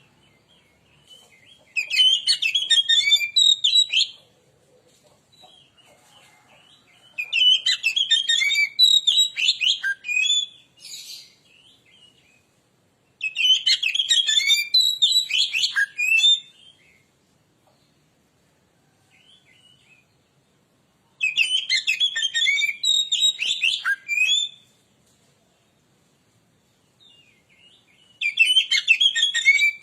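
Oriental magpie-robin (kacer) singing in loud, rapid, varied phrases of two to three seconds each, about five of them, separated by pauses of a few seconds.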